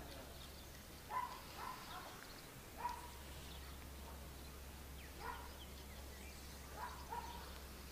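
A few faint, short animal calls, about six in all, spaced a second or two apart, over a low steady hum.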